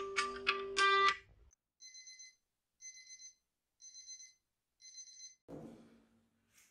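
Smartphone alarm ringtone playing a chiming melody, cut off about a second in when the alarm is stopped. Then four short electronic beeps, about one a second.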